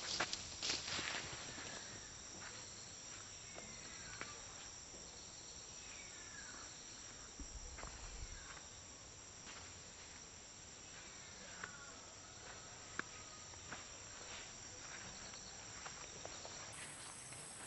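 Steady high-pitched drone of insects, with short chirping calls now and then and a few light clicks and knocks.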